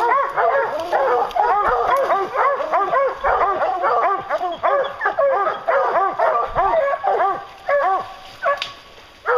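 A pack of English hounds baying together, their overlapping bawls coming several a second without a break. This is the tree bark of hounds holding a black bear up a tree. The baying thins out and drops away near the end.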